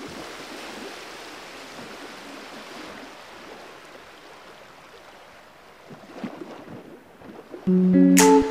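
A steady rushing noise that slowly fades. About seven and a half seconds in, loud music of plucked notes begins.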